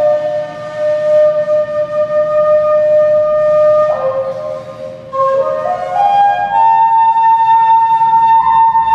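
Background music: a solo flute playing slow, long held notes, with one long note through the first half, then climbing step by step to a higher note that is held to the end.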